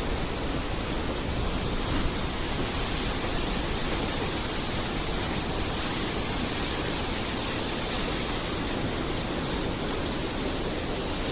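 River in flood rushing past in a steady, unbroken torrent of muddy water, swollen and overflowing after a downpour.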